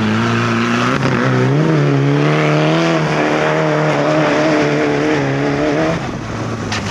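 Kartcross buggy engine running hard as the buggy drives and slides across a loose gravel yard. The engine note climbs over the first couple of seconds, holds with small wavers, then drops away and fades about six seconds in.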